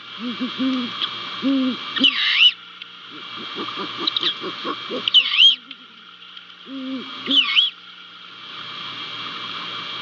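Great horned owls hooting at the nest: several bouts of rapid low hoots in quick series, with a higher wavering call rising and falling about two, five and seven seconds in, over a steady hiss.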